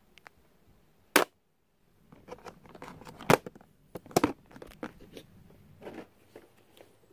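Handling noise of small objects being put away: rustling and light clatter with three sharp knocks, about a second in, past three seconds and just past four seconds.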